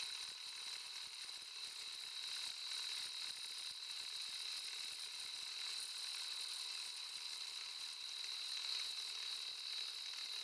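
A 1 mm slitting saw on a milling machine cutting through a conrod's big end and its phosphor bronze bearing insert: a steady rasping cut made of rapid fine ticks, with a constant high tone running through it.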